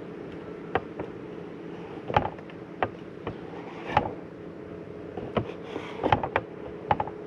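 Fillet knife clicking and tapping against a plastic cutting board while the bloodline is cut out of a sail catfish fillet: about a dozen short, sharp knocks, some in quick pairs, over a steady low hum.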